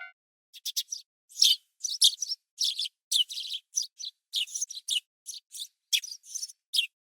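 Small birds chirping: a quick, irregular series of short, high chirps starting about half a second in.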